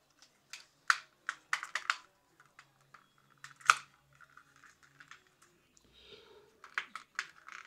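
Irregular light plastic clicks and taps as the folding arms of a small toy drone are swung out and worked by hand, checking the arm hinges for play; one click about halfway through is louder than the rest.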